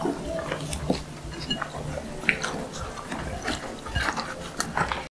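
People eating at a table: scattered light clicks and scrapes of a spoon against dishes and other tableware, irregular and close. The sound stops abruptly shortly before the end.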